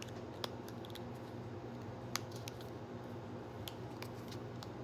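Scattered light clicks and taps as small items and packaging are handled, two of them sharper than the rest, over a steady low hum.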